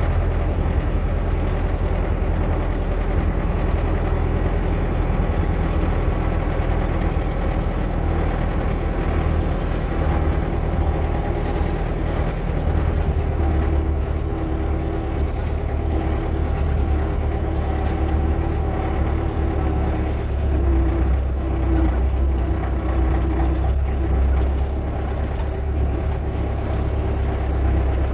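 An engine running steadily with a low, even hum, growing somewhat stronger from about halfway through.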